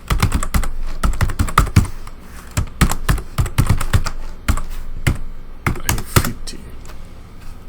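Computer keyboard typing: quick, irregular key presses as login details are entered, thinning out near the end.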